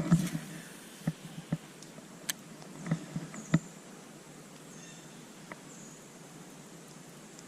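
A string of short light clicks and knocks in the first four seconds, then a faint steady outdoor hiss with a thin high buzz.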